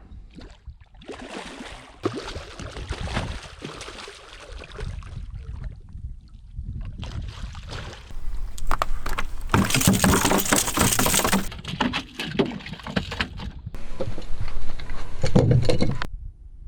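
Water splashing with wind noise on the microphone, in short stretches that start and stop abruptly several times; the loudest comes in the middle and near the end.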